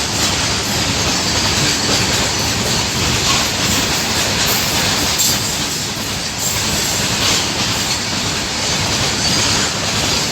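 A freight train rolling past: a steady rumble of wheels on rail, with occasional faint clicks.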